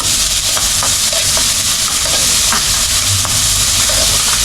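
Onion and garlic frying in hot oil, a steady loud sizzle.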